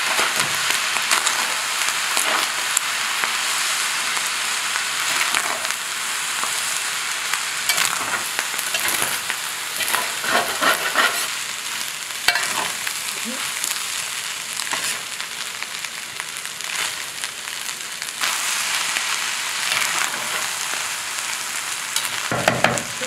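Fried rice sizzling in a large stainless steel skillet while a slotted metal spatula stirs and tosses it, with frequent scrapes and clacks of the spatula against the pan over a steady hiss.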